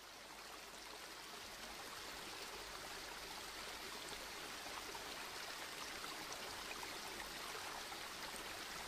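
Steady, fairly faint rushing hiss like running water, swelling slightly over the first second or so.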